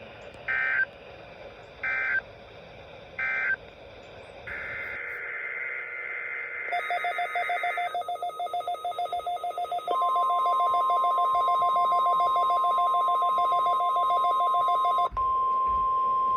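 NOAA Weather Radio test alert signal: three short screechy bursts of SAME digital header data about a second and a half apart, then a rapidly pulsing electronic alert beeping. About ten seconds in, the steady single-pitch 1050 Hz NWS warning alarm tone begins.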